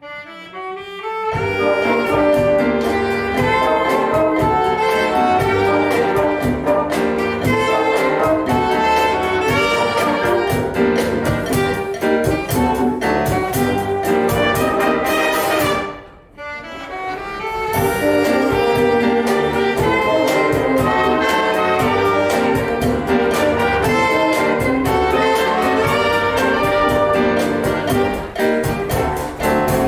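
Wind band playing a Cuban-style piece, with brass and saxophones over a rhythm section. The music breaks off briefly at the start and again about halfway through, and the band comes back in each time.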